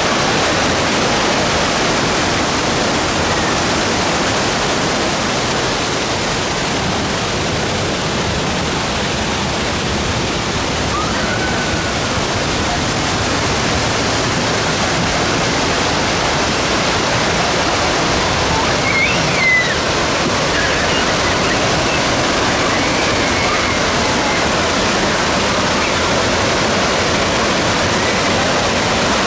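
Steady rushing of water pouring down the artificial waterfalls and rapids of the Grizzly River Run raft ride.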